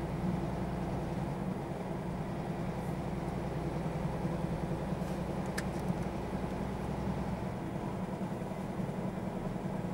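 Scania R440 truck's 13-litre diesel engine running steadily at low speed, heard from inside the cab as an even low drone. A single sharp click comes a little over halfway through.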